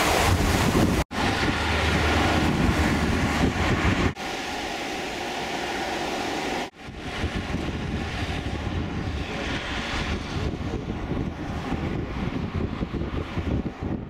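Wind buffeting the microphone over a steady outdoor rush, with a heavy low rumble early on. The sound drops out sharply and changes three times, about one, four and seven seconds in.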